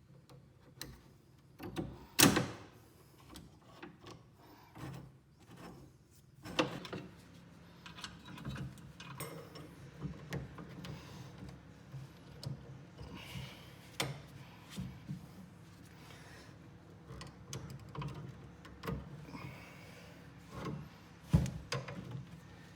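Scattered knocks, clicks and scrapes of wooden furniture parts and hardware being handled, the loudest knock about two seconds in, over a faint steady hum.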